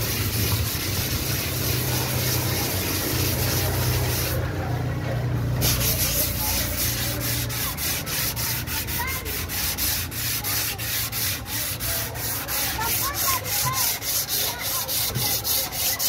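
Dry hand-sanding of body filler on a car door: sandpaper rubbed back and forth over the panel in quick strokes, about three a second. The rubbing stops briefly about four seconds in.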